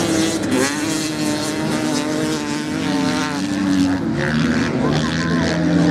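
Dirt bike engines running hard as the bikes race on sand, the pitch rising and falling as the riders open and close the throttle.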